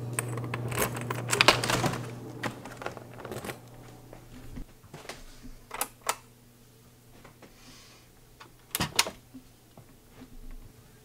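A door being opened, its knob and latch clattering in a burst of clicks and knocks, with a steady low hum that fades out after about three and a half seconds. Scattered single clicks and knocks follow, two pairs of them around the middle and near the end.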